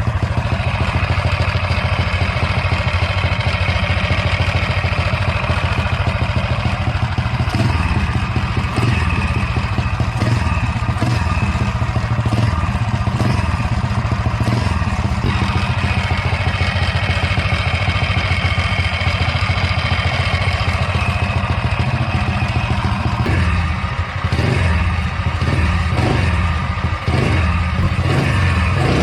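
Tillotson 263cc single-cylinder four-stroke minibike engine running steadily at idle with a light clatter from the bottom end, which the owner calls a little clatter but not too bad.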